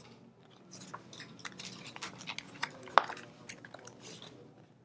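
Sheets of paper rustling and being leafed through, small crisp crackles with one sharper snap about three seconds in.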